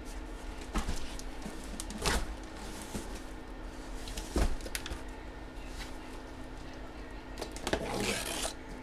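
Handling noise: a few scattered knocks and a short rustle near the end, over a faint steady hum.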